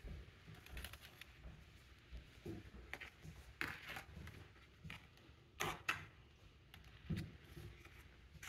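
A spatula scraping and tapping against a disposable aluminium foil pan while spreading frosting, with the thin foil crinkling under a hand: scattered short scrapes and clicks at irregular intervals, the sharpest a little past the middle.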